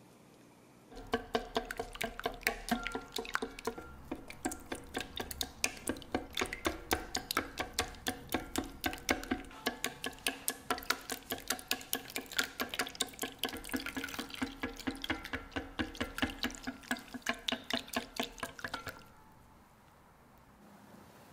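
A silicone-coated wire whisk beating an egg, milk and cream custard mixture in a stainless steel bowl, about four to five quick strokes a second. Each stroke knocks the bowl so it rings faintly, and the liquid sloshes. The whisking starts about a second in and stops near the end.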